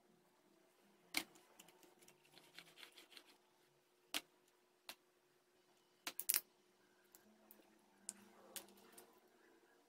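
Thin aluminium drink-can metal clicking and crinkling as it is bent by hand and snipped with scissors: a scatter of sharp clicks, with a quick run of three a little past the middle and a few scissor snips near the end.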